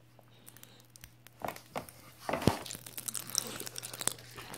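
Pop Rocks popping candy crackling in a mouth held close to the microphone. After about a second and a half of quiet come many small, irregular pops and crackles, thickest in the second half.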